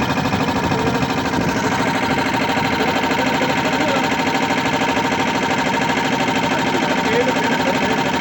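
Puma 5 hp piston air compressor running steadily, with a fast, even pulsing beat.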